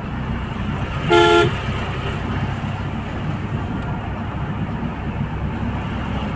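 A car horn sounds one short toot about a second in, the loudest thing here, over the steady engine and tyre hum heard inside a moving car's cabin.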